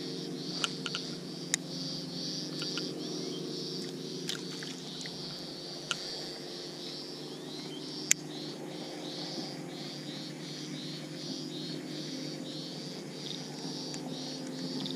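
Rhythmic high-pitched chirping of small animals calling, about two or three calls a second, over a steady low hum. A few sharp clicks, the loudest about eight seconds in.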